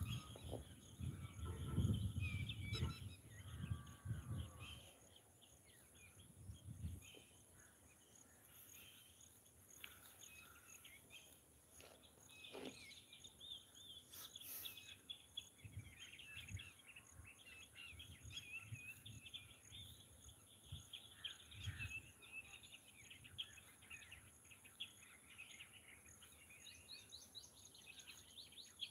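Faint birdsong: many small birds chirping and twittering in quick, overlapping calls. A low rumbling noise sits under it for the first few seconds, then fades.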